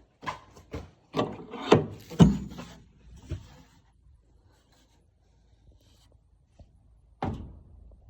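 A run of knocks and thuds on wood in the first three seconds or so, then one more hard knock near the end.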